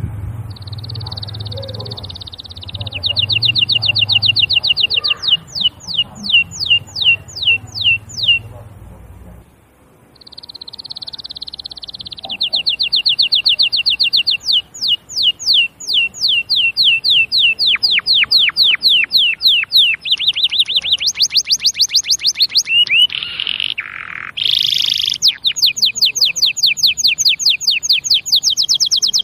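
Domestic canary singing: long rolling song phrases of fast trills and rapid runs of downward-sweeping notes, with a short pause about nine seconds in before a second, longer bout.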